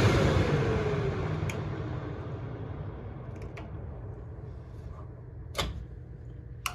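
A motor-driven machine's running noise fading out as it winds down, its whine falling in pitch over about a second, followed by a few light clicks and a sharper click near the end.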